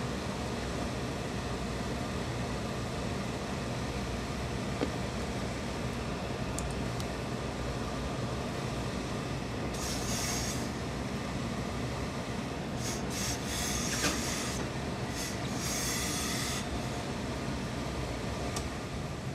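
Handheld steam iron hissing in short bursts of steam as it is pressed onto a suit jacket's seam, about ten seconds in and again in several bursts a few seconds later, over a steady rumbling machine hum from the pressing equipment.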